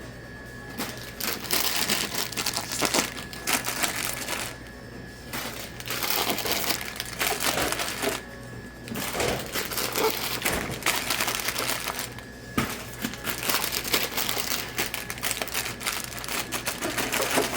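Chip bags crinkling as they are handled, straightened and pushed into a vending machine's coil slots, in stretches broken by brief pauses.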